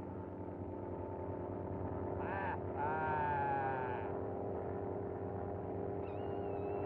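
Early-1930s cartoon soundtrack: a steady, buzzing drone of many held tones, with two short wavering squawks about two to four seconds in and a thin high whistling tone near the end.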